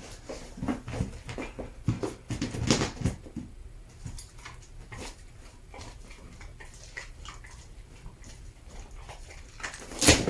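A dog moving about on a hard floor: scattered taps and light knocks of paws and claws, busiest in the first few seconds, with a louder knock near the end.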